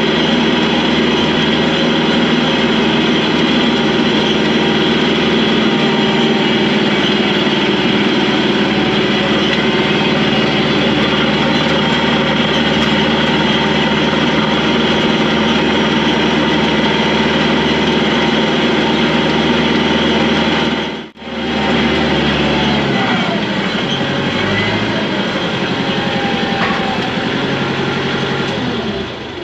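A vehicle's engine running steadily. The sound cuts out for a moment about two-thirds of the way through, and afterwards the engine runs lower and a little quieter, slowing toward idle.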